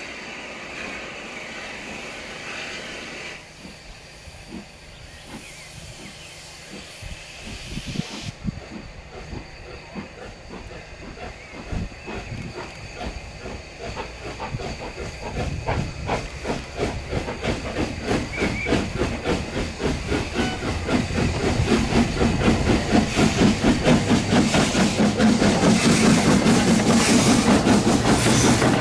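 Steam locomotive blowing off a steady hiss of steam that stops a few seconds in, then starting away with a passenger train: its exhaust beats begin slowly and grow quicker and louder as it approaches.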